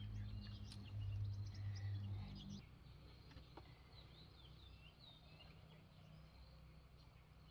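Small birds chirping outdoors in short, repeated rising and falling calls. A steady low hum sounds under them for the first two and a half seconds and then stops.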